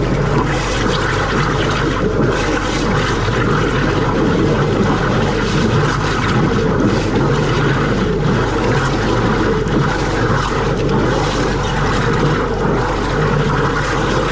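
A high-pressure drain jetting unit's engine and pump run steadily while a stream of water gushes down into a fat-blocked kitchen gully trap.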